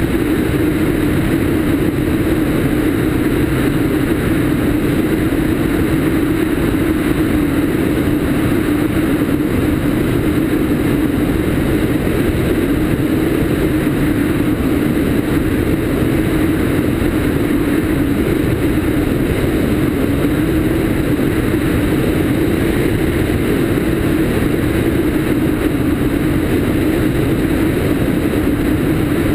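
A Cessna 152's four-cylinder Lycoming engine and propeller running steadily in flight. It is mixed with wind rushing over a camera mounted outside under the wing.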